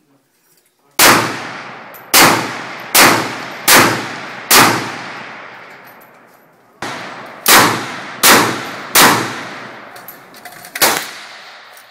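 Czech Small Arms VZ-58 Sporter semi-automatic rifle in 7.62×39mm firing ten shots in two strings of five, the shots less than a second apart with a pause of about two seconds between the strings. Each shot is sharp and trails off in a long echo.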